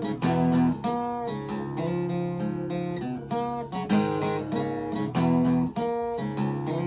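Acoustic guitar strummed in chords, with a steady, even rhythm of strokes.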